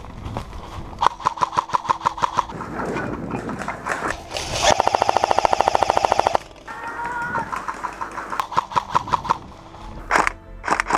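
Airsoft electric rifles firing on full auto: short rapid bursts of clicking shots, then a longer, louder, faster burst about halfway through, then more bursts near the end.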